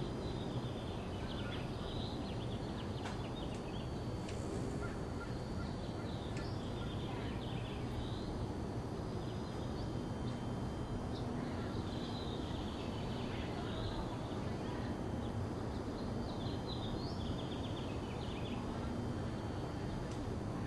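Small birds chirping in short clusters of high twitters, repeated on and off, over a steady low background rumble.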